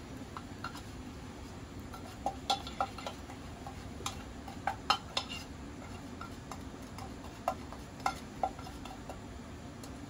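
A spatula scraping and tapping against an aluminium square mess tin while curry powder is dry-roasted in it: scattered light clicks, some in quick clusters, over a steady low hum.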